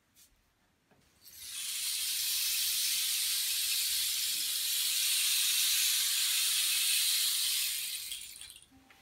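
Wooden rain stick tipped slowly, its filling trickling down inside with a steady rushing hiss that swells in about a second in and fades away near the end.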